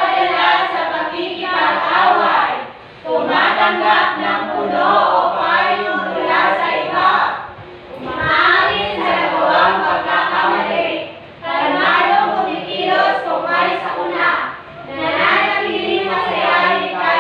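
A class of students reciting answers together in a sing-song unison chant, in about five long phrases with short breaks between them.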